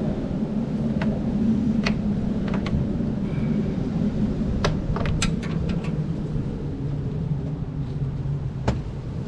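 Scattered sharp plastic clicks and knocks of electrical connectors being unplugged from a car headlight assembly, a cluster of them about halfway through, over a steady low rumble.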